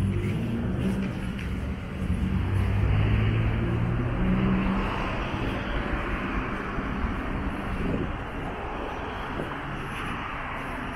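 City street traffic: a motor vehicle's engine hums low through the first half, and a passing car's tyre and engine noise swells near the middle, then eases.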